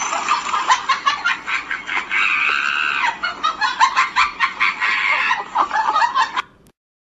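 A rapid, continuous string of clucking calls that stops abruptly shortly before the end.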